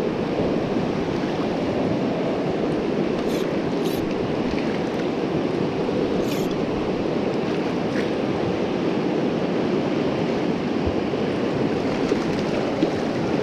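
Fast-flowing river rushing past in a steady, unbroken wash of water noise.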